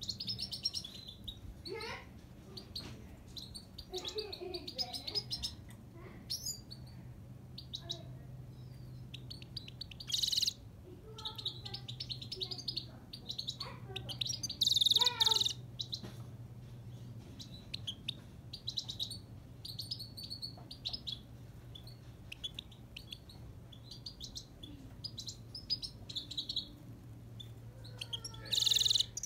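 Himalayan (grey-crowned) goldfinch singing: a long run of rapid twittering and trills, with louder, harsher bursts about ten, fifteen and twenty-nine seconds in. A faint low hum runs underneath.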